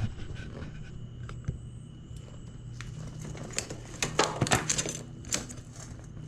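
Metallic clicking and rattling as a bicycle's rear wheel is worked out of the frame, chain and hub clattering; the clicks bunch together from about halfway in.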